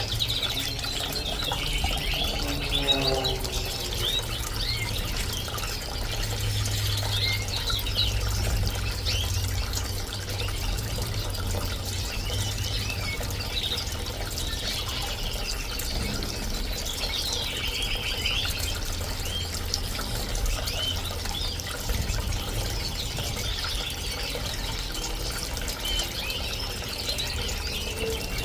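Bird-bath fountain running with a steady flow of water and a low steady hum, while canaries and finches chirp and trill continuously over it.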